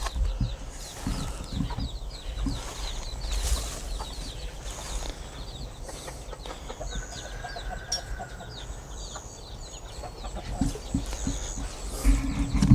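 Hens clucking while chicks peep in many quick, high chirps, with scattered low thumps of microphone handling near the start and again near the end.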